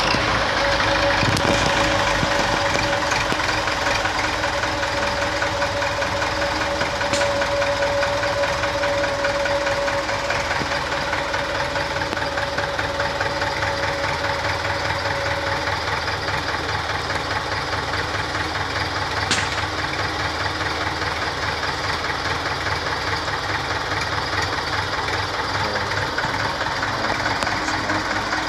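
Farm tractor's diesel engine idling steadily just after starting, inside an enclosed brick shed, with a fast, even clatter. A steady whine runs through the first half and fades out a little past the middle.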